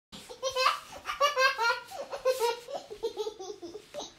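A baby laughing in a string of quick, high-pitched bursts, each broken into rapid pulses; it starts abruptly.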